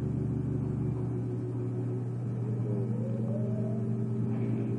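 Low steady hum of several held tones, with a faint rising tone about three seconds in.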